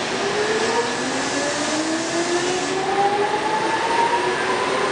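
Seibu 2000 series electric train pulling away: its traction motors whine, several tones rising steadily in pitch together as it accelerates, over the rumble of the wheels on the rails.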